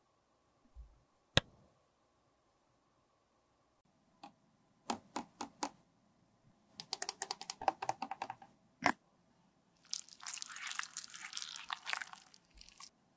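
Close-miked handling of cosmetic containers: a single sharp click, then a run of small plastic clicks and taps, and near the end a crackly rubbing as a plastic roll-on deodorant bottle is rubbed over bare skin.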